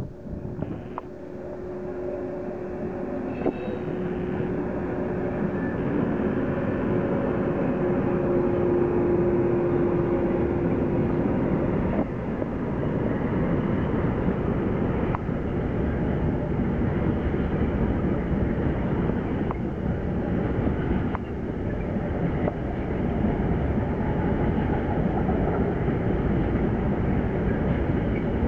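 Electric freight train, headed by two electric locomotives, rolling past with a long string of wagons. The rumble builds over the first several seconds and then holds steady. A steady hum runs through the first twelve seconds, and a few sharp clicks come from wheels crossing rail joints.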